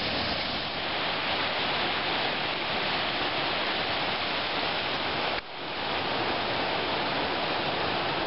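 Rushing water of a river pouring over a small rocky waterfall and rapids, a steady, even roar. It drops out for an instant about five seconds in, then carries on.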